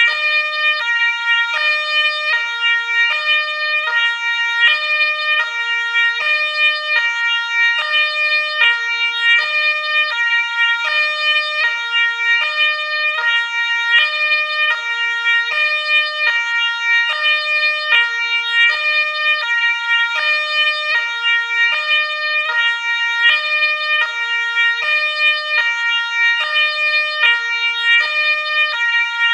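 Ambulance two-tone siren, switching back and forth between a high and a low tone about once every half second, steady and unbroken.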